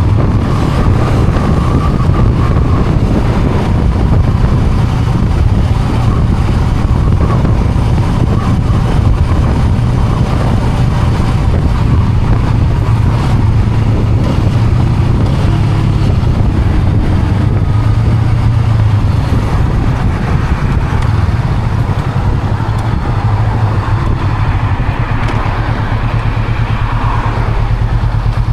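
Honda Rebel 500's parallel-twin engine running steadily while the motorcycle is ridden, with a continuous noisy rush over it.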